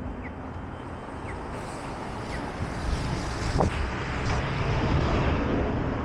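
Downtown street ambience: traffic rumbling past and wind buffeting the microphone, the rumble growing louder in the second half. A short high chirp repeats about once a second in the first half, and a sharp knock sounds about halfway through.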